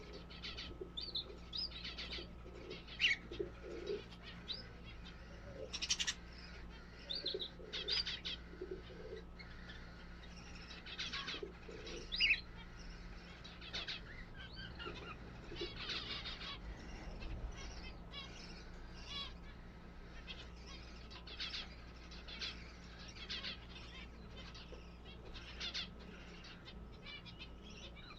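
Pigeons in a loft: soft cooing with wings flapping now and then, among many short, high chirps, over a faint steady hum.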